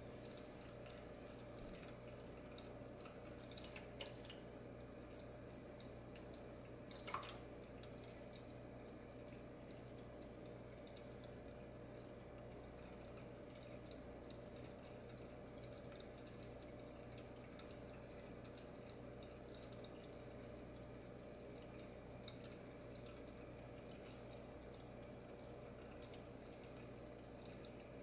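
Drinkwell Platinum pet fountain running: a thin stream of water trickling steadily from the spout into the bowl, over a steady low hum. Two brief sharp clicks come in the first several seconds.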